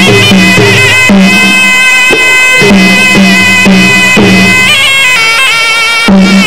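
Traditional Kun Khmer fight music: a nasal reed pipe (sralai) plays a loud melody with bending, ornamented notes over skor yaul drum strokes.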